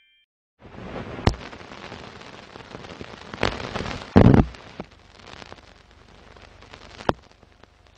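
Old film soundtrack noise: a steady crackling hiss with a few sharp pops, the loudest a heavier thump about four seconds in.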